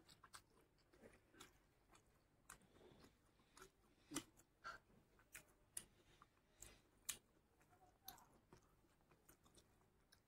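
Soft, close-up eating sounds of a man eating rice and curry with his hand: wet chewing and lip smacks in irregular short clicks, the sharpest about four seconds in and again about seven seconds in.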